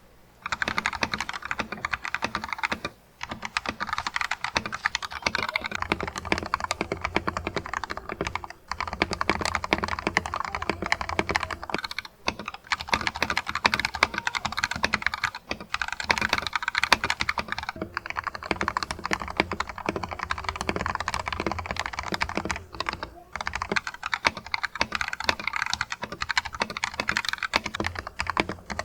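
Fast, continuous typing on a Royal Kludge RKG68 mechanical keyboard with Akko CS Starfish linear switches and PBT XDA keycaps, a dense run of key clacks broken by a few short pauses.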